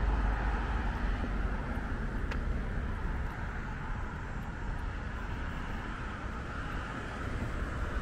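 Street traffic: a passing car's road and tyre noise with a low rumble, fading away, then steady distant traffic.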